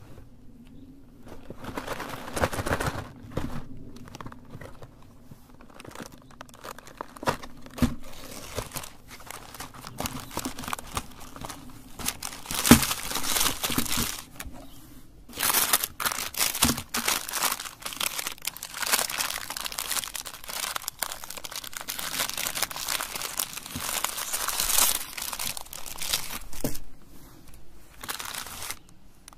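Ice cream bar wrappers and their cardboard box being handled, crinkling and rustling in irregular bursts, with a wrapper torn open and peeled off a bar. One sharp knock near the middle.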